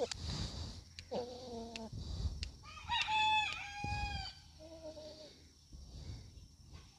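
Rooster calls: a short call about a second in, then a loud crow lasting just over a second about three seconds in, then a fainter call a second later, with a few light ticks between them.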